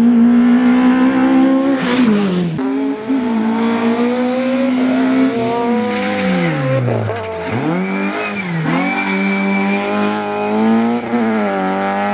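Rally car engines under hard acceleration, one after another. First a Simca 1000 revving high; then a Citroën Saxo whose engine note drops and climbs again several times as it changes gear and lifts off.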